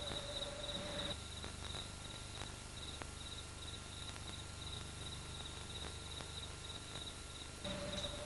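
Faint, high-pitched insect chirping in a steady pulsing rhythm, with a low steady hum for about the first second and again near the end.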